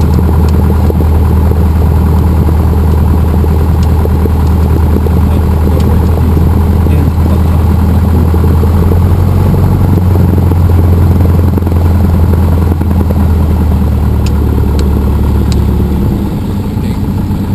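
Cessna 172M's four-cylinder Lycoming engine and propeller running at low power while the plane taxis, a steady loud drone heard inside the cockpit. Near the end the engine note drops slightly and gets a little quieter.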